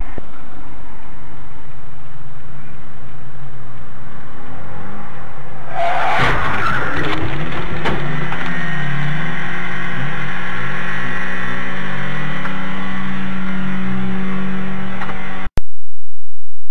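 Car engine running as heard through a dashcam's microphone, then about six seconds in a loud crash as two cars collide just ahead. Engine sound continues after the impact until the sound cuts off near the end.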